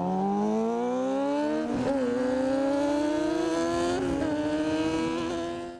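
Motorcycle engine accelerating hard, its pitch climbing, dropping briefly with an upshift about two seconds in, then climbing again more slowly before the sound fades out at the end.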